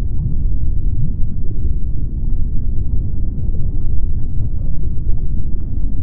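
A loud, steady low rumble with no pitch, tune or rhythm.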